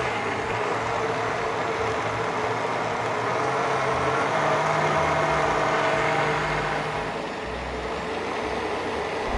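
High-powered countertop blender running steadily, puréeing toasted nuts and sautéed aromatics with beef stock into a kare-kare sauce. Its motor note changes about four seconds in.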